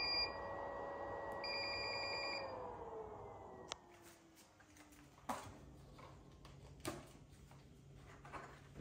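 3M Adflo powered air-purifying respirator blower running with a steady whine; a button press sets off a short beep, then a quick run of beeps about a second and a half in, after which the motor winds down, falling in pitch and fading out as the unit is switched off. A few sharp knocks follow as the helmet is handled.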